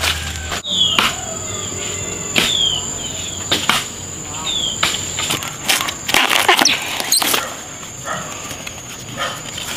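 Steady high-pitched insect drone with a bird's short falling calls repeated several times. Scattered sharp snaps and rustling from bamboo-shoot husks being peeled by hand, loudest about six to seven seconds in.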